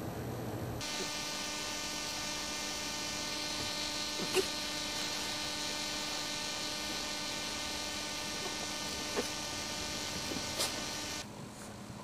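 A steady electric buzz with many overtones switches on about a second in and cuts off shortly before the end, with a few short clicks over it.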